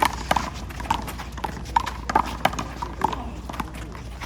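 Handball rally: a run of sharp, irregularly spaced slaps as the small rubber ball is struck by open hands and hits the wall.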